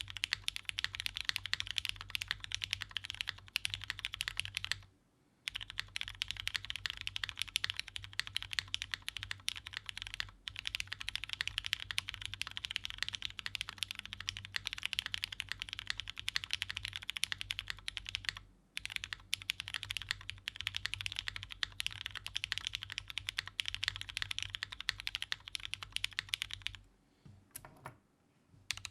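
Fast typing on a custom mechanical keyboard, the DN Ryujin prototype: lubed Cherry MX Hyperglide Brown tactile switches on a UHMWPE plate in a gummy O-ring mount, under GMK keycaps. Keystrokes click in a dense, rapid stream, with a short pause about five seconds in and a longer one near the end.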